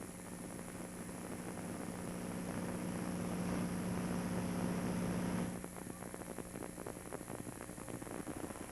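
Hiss and a steady mains hum from an old VHS broadcast recording, swelling for about five seconds and then dropping suddenly, followed by quieter crackly noise.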